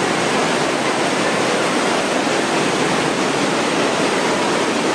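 Floodwater rushing through a subway tunnel alongside a stranded train, a loud, steady rush of churning water.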